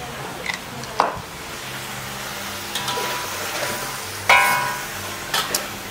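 Food sizzling in a pan on the stove as it is stirred, the utensil knocking against the pan a few times, with one louder ringing clank a little past four seconds in.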